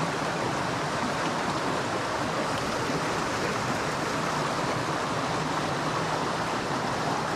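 Small mountain creek rushing steadily over rocks through a shallow riffle.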